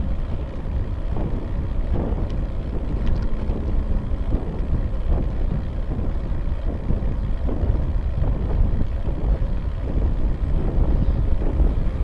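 Wind buffeting the microphone of a bicycle-mounted camera while riding, a steady low rumble.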